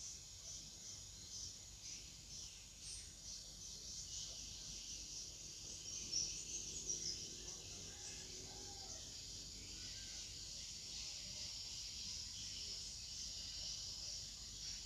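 Steady high-pitched chorus of insects chirring, faint but continuous.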